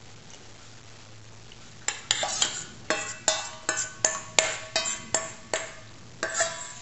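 Batter for a sourdough starter being stirred and scraped in a stainless steel bowl: quick scrapes and knocks about three a second, starting about two seconds in, each leaving the metal bowl briefly ringing.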